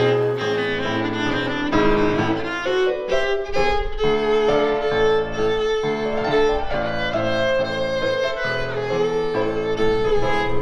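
Background music with a violin lead playing changing held notes over a lower bass line.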